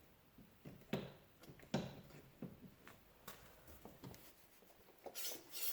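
Faint clicks and knocks at about one a second, typical of the ATV's front brake lever being squeezed repeatedly to push the caliper piston back out against new pads. A short scraping rub comes near the end.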